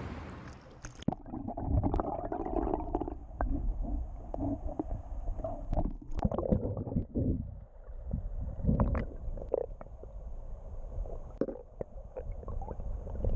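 River water heard through a submerged camera: the sound turns muffled about a second in as it goes under, leaving a low rumbling gurgle with scattered knocks and clicks.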